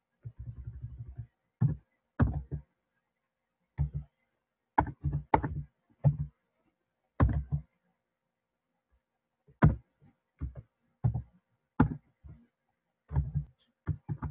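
Computer keyboard being typed on: separate, irregularly spaced keystrokes with a pause of about three seconds midway.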